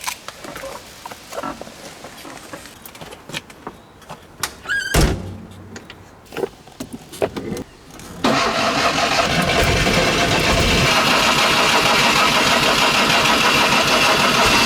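A series of clicks and knocks, with a louder thump about five seconds in. Then, about eight seconds in, the Fiat 126's small two-cylinder engine is cranked on the starter, a sudden, loud, steady churning that goes on without the engine catching.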